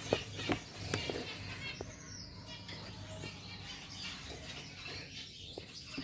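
Gouldian finches shifting about inside a plastic shipping box, with a few light taps in the first two seconds and faint chirps.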